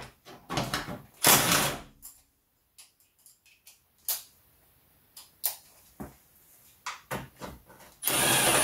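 Clicks and knocks of a socket ratchet and long extension being worked on the grille-panel bolts, with a louder rasping stretch about a second in. Near the end, a cordless drill-driver runs briefly with a high whine, undoing a bolt.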